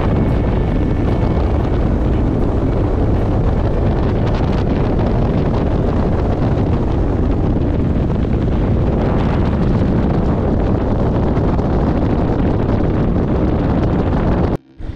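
Steady wind rush on the microphone over a bass boat's outboard motor running at speed across the lake. It cuts off suddenly near the end.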